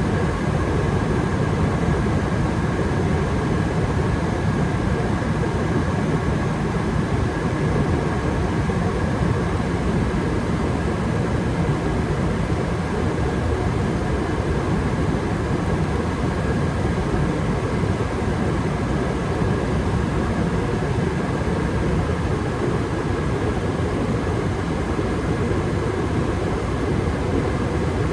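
Gas furnace running steadily with its burners firing and the circulation blower on: an even rush of air and flame, with a faint steady whine above it.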